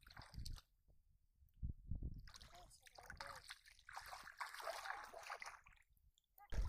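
Feet wading through shallow muddy water, splashing and sloshing in a few irregular bursts with short quiet gaps between.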